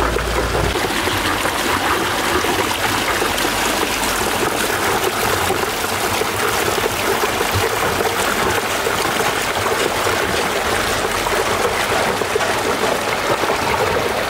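Water rushing steadily out through the outlet of a small concrete model dam, a constant splashing flow. A low rumble underneath drops away under a second in.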